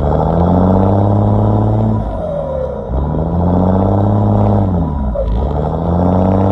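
Cummins diesel engine revved three times in a row, its note climbing and dropping with each rev, and a turbocharger whistle gliding down in pitch as the revs fall between them.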